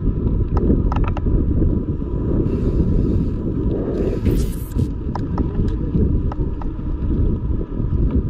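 Wind buffeting the microphone of a handlebar-mounted camera as a mountain bike rolls along a paved path: a loud, steady low rumble, with a few light clicks and a short hiss about four seconds in.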